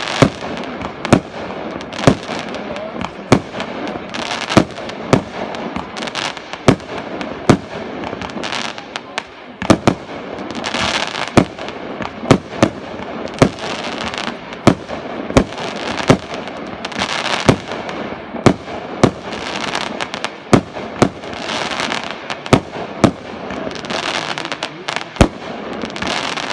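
Fireworks display: a continuous run of sharp bangs, about one to two a second, with repeated stretches of dense crackling between them.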